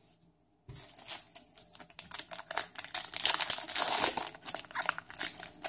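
Foil booster-pack wrappers crinkling in the hands: a dense run of quick crackles that starts about a second in and grows louder in the middle.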